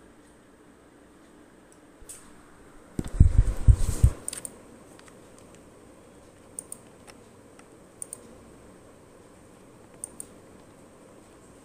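Computer mouse and desk clatter: a short burst of loud knocks and rattles about three seconds in, then single sharp mouse clicks spaced about one and a half to two seconds apart.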